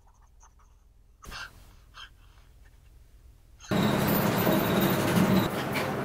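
Fountain pen nib scratching on paper in a few faint, short strokes. A bit past halfway, a loud, even rushing noise cuts in suddenly and holds.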